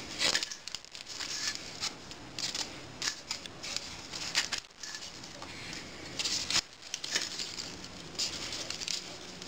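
Crisp rustling and crackling of stiff bijao leaves and string as hands pull the string tight and knot it around a leaf-wrapped tamal, in short irregular bursts.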